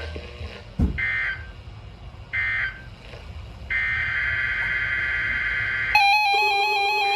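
EAS/SAME digital data bursts from a weather radio: short bursts about a second in and again about two and a half seconds in, the end-of-message code after a severe thunderstorm warning, then a longer steady burst of the same data tone. About six seconds in, an electronic alert tone starts, stepping rapidly between pitches.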